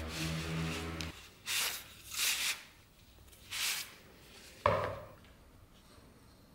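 A steel bayonet blade sliding in and out of a leather sheath: three rubbing swishes, then a sharp knock about four and a half seconds in as the bayonet is set down on the bench. A steady low hum stops abruptly about a second in.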